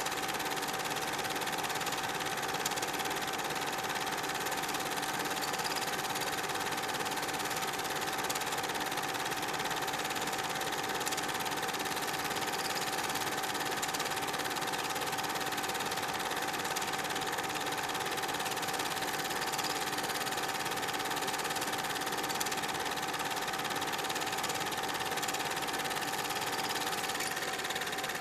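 Super 8 film projector running steadily, an even mechanical whir with a constant hum.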